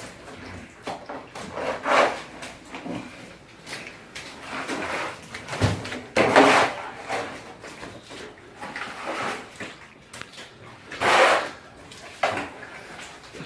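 Intermittent scraping, knocking and rubbing of wood and debris being moved during a flooded-basement clean-out, with louder scrapes about two, six and eleven seconds in.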